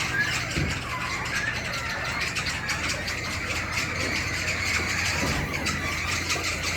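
Many game birds chirping and calling over one another in quick, overlapping short chirps, with a steady low hum underneath.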